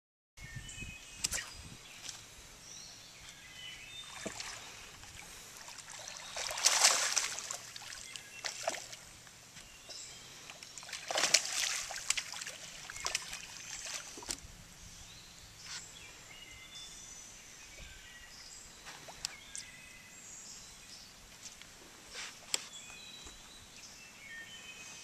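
A hooked bass splashing and thrashing at the lake surface beside a boat, with two louder surges about a quarter of the way in and again near the middle. Scattered small clicks and knocks and short songbird chirps run throughout.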